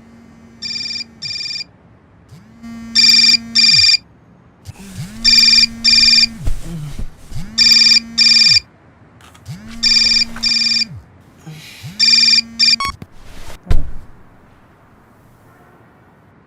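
Alarm ringing in a telephone-style double ring, two short rings about every two and a half seconds, six times over. It stops with a few clicks and a knock about thirteen seconds in.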